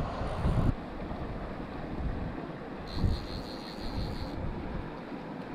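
Wind buffeting the microphone over the steady rush of river water, with irregular low rumbles.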